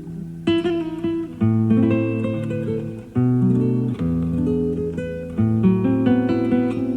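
Classical guitar played live: plucked melody notes ringing over low bass notes, with new groups of notes struck about every second. It is heard through an old cassette recording of an FM broadcast, with the top end dulled.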